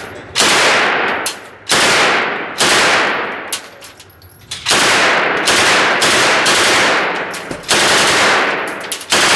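AK-47 rifle firing 7.62×39 mm rounds: a string of loud shots about one to two seconds apart, each ringing on and dying away in the enclosed shooting lane.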